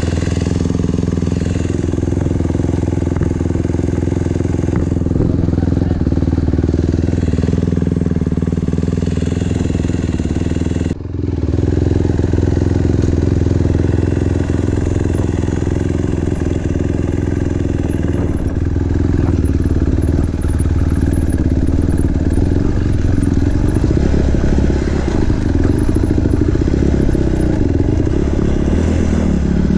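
Small single-cylinder dirt bike engine running steadily under way, its pitch shifting a little with the throttle, with a brief dip in the sound about eleven seconds in.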